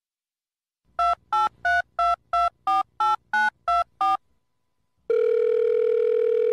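Telephone keypad touch-tones: about ten quick beeps in a row, each a slightly different note. About five seconds in, a steady telephone tone starts and holds.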